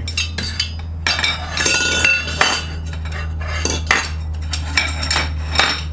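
Lengths of aluminum tubing clinking and knocking against each other and against a workbench as they are handled and set down, several of the knocks ringing briefly, over a steady low hum.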